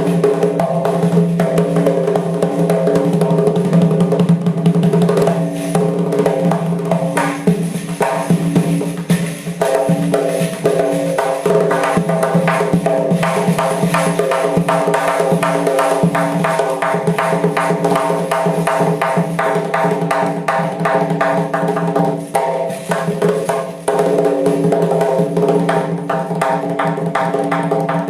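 Doira, the Central Asian frame drum, played in rapid strokes that thicken into fast rolls partway through, over a steady pitched musical accompaniment.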